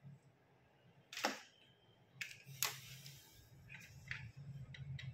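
A handful of short, sharp clicks and taps, the loudest about a second in and again a second and a half later, as wire leads and connectors are handled and plugged in around an ignition coil tester.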